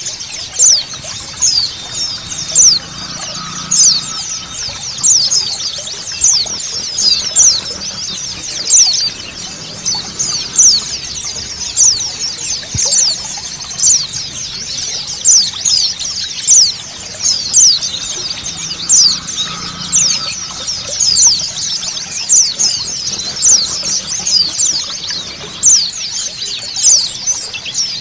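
A flock of white-eyes chirping without pause: many short, high, falling chirps, loudest about once a second, over a steady hiss of running water.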